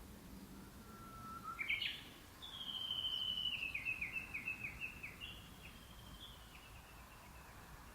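Japanese bush warbler giving its tani-watari (valley-crossing) call: a faint low whistle, a quick rising flourish, then a long run of rapidly repeated notes that step gradually down in pitch and die away before the end.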